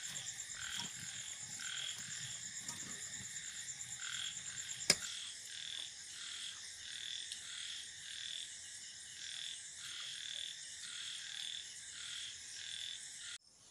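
Frogs calling in short repeated notes, about one or two a second, over a steady high insect trill, with a single sharp click about five seconds in; all of it stops abruptly near the end.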